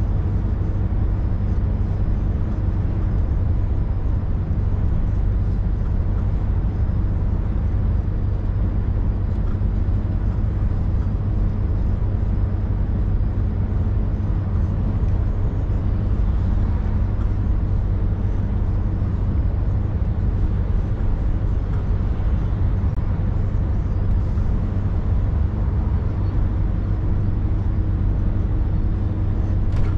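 Scania V8 530S truck under way: the V8 diesel engine runs with a steady low drone, mixed with road noise.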